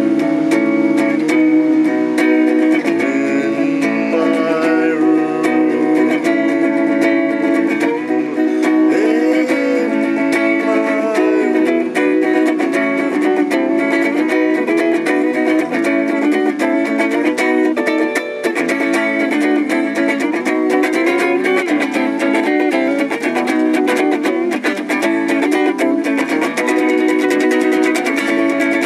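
Clean-toned electric guitar played solo, picking a melody over chords in a steady run of quick notes.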